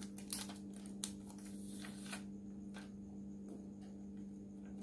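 Faint rustling and a few light clicks as a smartphone and its cardboard packaging are handled, over a steady low hum.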